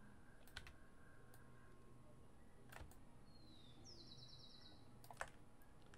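Near silence: room tone with a few faint computer clicks, and a brief high chirp ending in a quick trill about three and a half seconds in.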